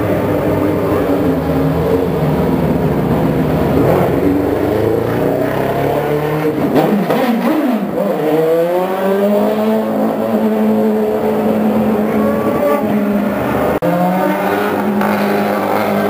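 Honda V8 IndyCar engines at high revs as the cars run past on track; about seven seconds in the pitch swoops down and up sharply, then holds as a steady, slowly climbing high-revving note, and a second car's engine comes in near the end.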